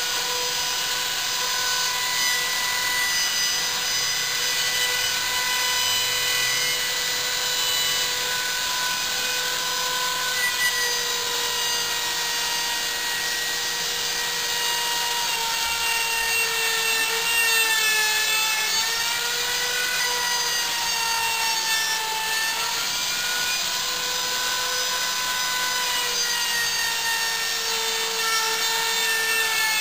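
Handheld electric router with a 3/8-inch round-over bit, running at full speed with a steady high whine while it rounds over the edges of 2x lumber shelf brackets. Its pitch sags briefly a few times, around the middle, as the bit takes load in the wood.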